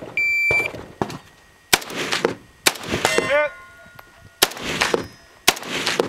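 A shot-timer beep starts the stage. Then an AK-pattern rifle fires single shots at about one per second, and the steel targets at 100 yards ring back with a ding or clang after several of the hits.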